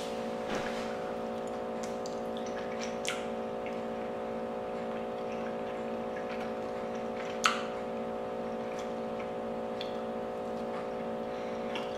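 A steady hum made of several held tones, with a few faint clicks and one sharper click a little past halfway.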